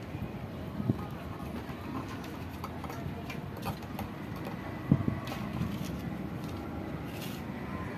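Steady background rumble with faint distant voices, a few small clicks, and two dull thumps about one and five seconds in, the second the loudest.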